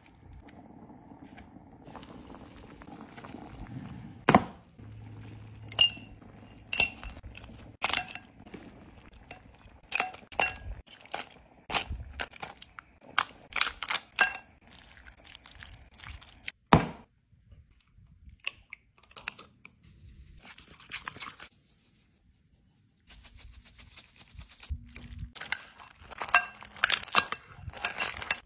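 A metal ladle clinking and scraping against a pot and bowl while seafood boil is served. The clinks are sharp and irregular, with a quiet stretch midway.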